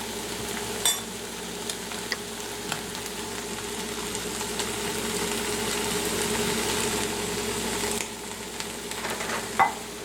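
Garlic chicken pasta and vegetables sizzling steadily in a nonstick skillet, the sizzle swelling in the middle, with a few sharp clicks of a utensil against the pan about a second in and near the end.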